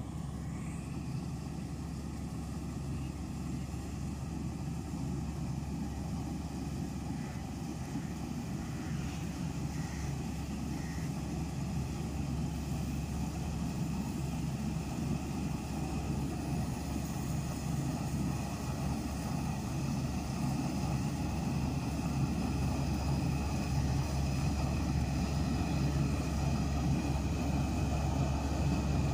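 Preet 949 crawler combine harvester running while cutting paddy: its four-cylinder engine drones steadily, with thin high whines from the machinery above it, growing gradually louder as the machine comes closer.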